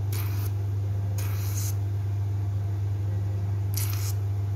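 Hydrafacial machine's pump humming steadily, with three short hisses of air and fluid as the suction handpiece works over the skin of the nose.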